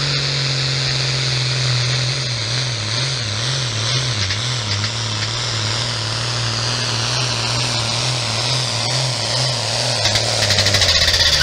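Pulling tractor's diesel engine running flat out under full load while dragging a weight-transfer sled. It makes a loud, steady drone whose pitch wobbles up and down for a few seconds about two seconds in, then holds and sags slightly near the end.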